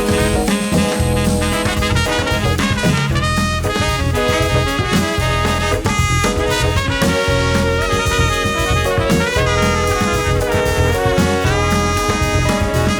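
Upbeat swing-jazz background music with brass, trumpet and saxophone lines over a steady beat.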